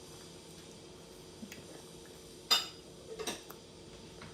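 A spoon clinking against a bowl: a faint tap about one and a half seconds in, a sharp clink about halfway through, and two lighter clinks just after.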